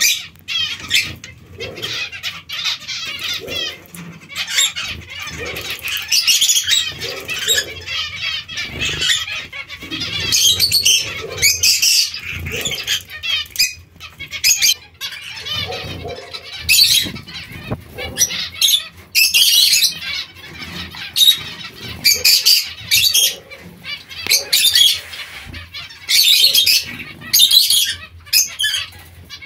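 Zebra finches bathing in a shallow water dish: bursts of wing-fluttering and splashing come and go, with the flock calling repeatedly in short high calls.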